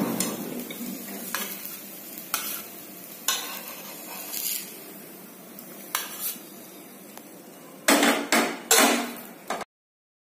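Steel spatula scraping and tapping on a nonstick tawa and clinking on a steel plate as cooked thepla are lifted off and set down, over a light sizzle. A louder run of clatters comes near the end, then the sound cuts off abruptly.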